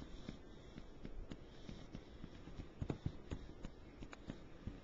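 Soft, irregular taps and scuffles of a miniature pinscher playing and scrabbling on a couch over a toy.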